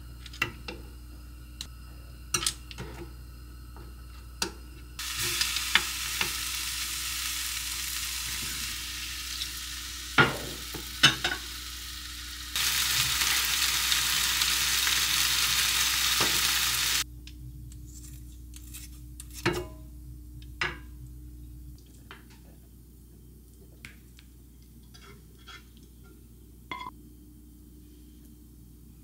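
Metal tongs clicking against a frying pan as beef short ribs go in, then the ribs frying in the pan with a steady sizzle for about twelve seconds, louder for its last four. Near the end, a wooden spoon taps and scrapes on a ceramic plate.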